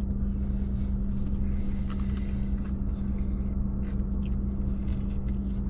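Steady low hum of a truck idling, heard from inside the cab, with a few faint clicks and rustles as a breakfast wrap is handled and bitten.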